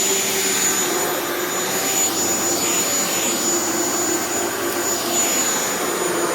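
Shark Vertex HZ2002 corded stick vacuum running steadily, with an even motor hum under a thin high whine; it is quiet and purring.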